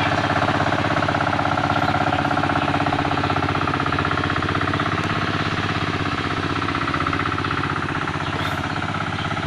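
An engine running steadily at a constant speed with a rapid, even chugging.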